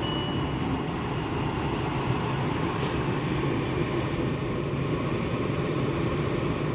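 Steady low rumble and hiss inside the cabin of a parked VW Touareg 7L with its selector in park, even in level throughout.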